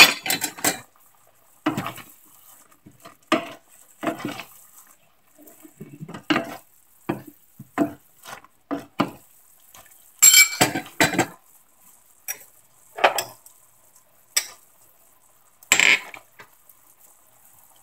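Metal spoon clinking and scraping against a stainless saucepan in irregular, short strikes while sauce is spooned over a whole fish in the pan.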